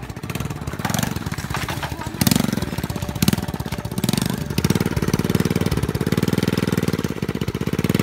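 Small motorcycle engine running with a fast, even firing pulse, revved up and down several times and getting louder about halfway through.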